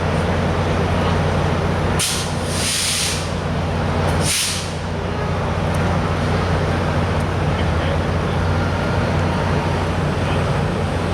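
Diesel commuter locomotive idling with a steady low engine drone, broken by two sharp blasts of air hiss from the air brakes, a longer one about two seconds in and a shorter one a second later.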